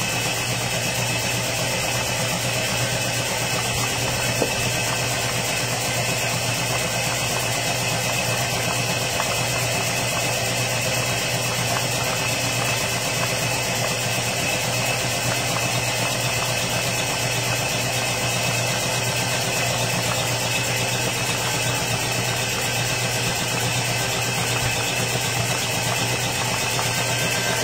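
Air compressor running steadily, a constant hum with a noisy hiss over it.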